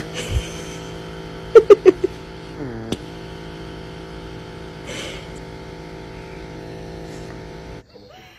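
Small handheld electric motor tool whirring steadily. Its pitch dips briefly twice, about three seconds apart, as if loaded and released. A quick run of four loud, sharp sounds comes about a second and a half in, and the whirring stops near the end.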